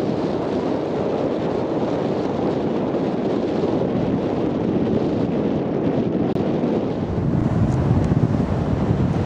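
Wind buffeting the camera microphone in a steady rumble, with the wash of distant surf beneath it. The sound breaks off for an instant about six seconds in, and the low wind rumble comes back heavier after it.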